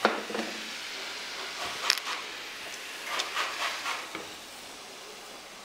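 Braised cabbage hissing as it simmers in a frying pan, with a few sharp clinks of a spoon against the pan and a spell of stirring and scraping about three to four seconds in.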